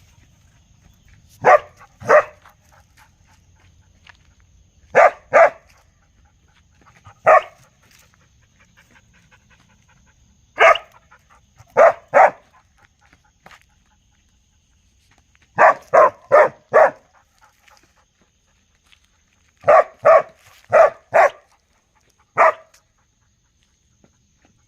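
A dog barking in short groups of one to four sharp barks, with pauses of a few seconds between the groups.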